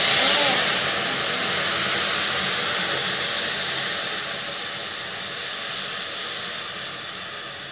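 Milk poured into a hot pan of ghee-roasted vermicelli, hissing and sizzling loudly as it hits the hot metal. The hiss is strongest at first and eases off slowly as the pan cools under the milk.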